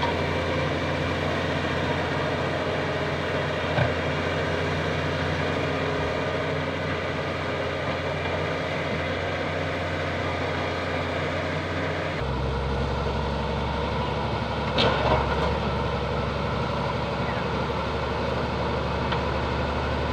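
Bulldozer's diesel engine running steadily under work, its low note dropping to a deeper pitch about twelve seconds in. A couple of brief metallic knocks stand out, the loudest around fifteen seconds in.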